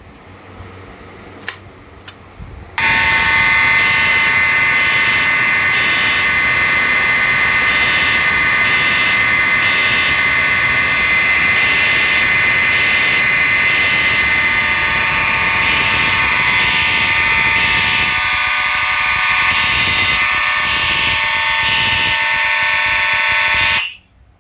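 A group of Simplex fire alarm notification appliances set off together from a Simplex 4010 fire alarm panel, quite loud: several steady alarm tones layered with a pulsing pattern. They start suddenly about three seconds in and cut off abruptly about a second before the end.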